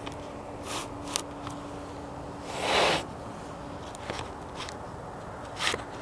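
A steady low drone with a constant humming tone: an unidentified noise, not a generator, that runs all night and that the recorder calls a loud strange idling noise or whistling. A few short rustling scrapes cut across it, the loudest about halfway through.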